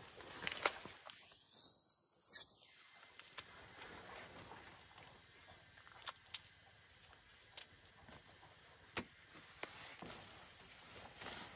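Faint rustling of corn husks and leaves as an ear of corn is peeled and more are picked, with scattered short crackles and snaps.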